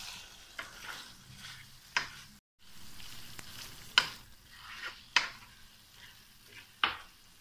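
A spatula stirs frying chicken and peppers in a wok over a faint sizzle, with about five sharp clacks as it knocks against the pan. The sound drops out for a moment about two and a half seconds in.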